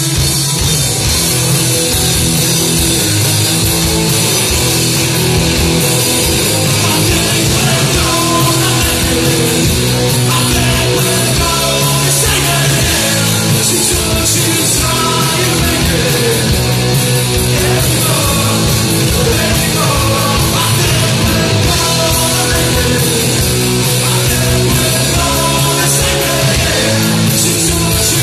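Live rock band playing loudly: electric guitars and drums in a steady, driving beat.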